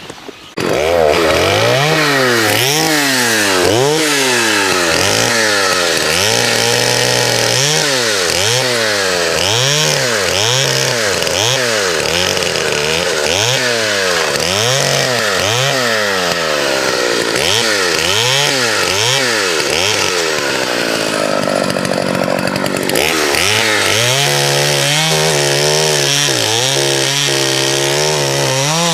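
Vintage two-stroke chainsaw, its carburettor freshly adjusted, starting up suddenly and cutting. Its engine pitch rises and falls about once a second as the throttle is worked. About 20 s in the engine drops low for a couple of seconds, then runs higher and steadier with a quicker wobble.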